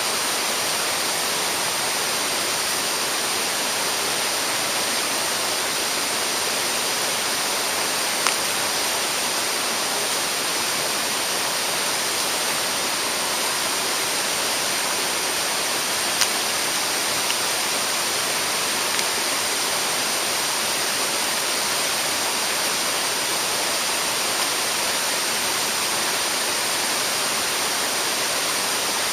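Steady rush of a mountain stream's flowing water, with a couple of faint clicks along the way.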